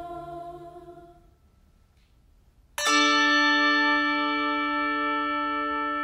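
A youth choir's held a cappella chord fading out, then near silence, then a single bell struck about three seconds in, ringing on with several steady tones that die away slowly with a gentle wobble.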